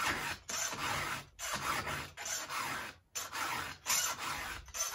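Round file rasping across a chainsaw chain's cutter teeth, about seven even strokes with short pauses between, sharpening a chain dulled by dirt.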